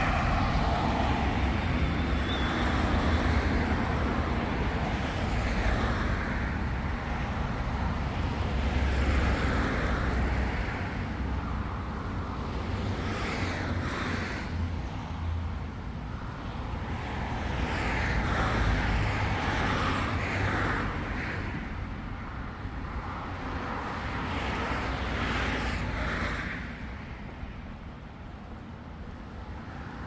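Road traffic on a busy street: cars passing one after another, each swelling and fading over a steady low rumble, growing quieter for the last few seconds.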